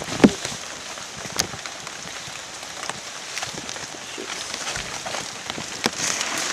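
Rustling of ferns and grass brushing past at close range, with footsteps through leaf litter and scattered sharp snaps and crackles.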